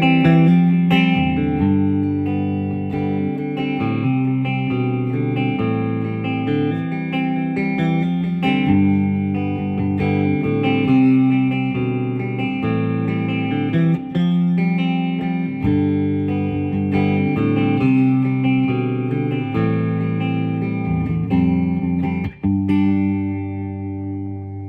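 1957 Gretsch Duo Jet electric guitar with its original DeArmond Dynasonic pickups being played, notes and chords changing every second or so and ringing on, with a brief break about 22 seconds in.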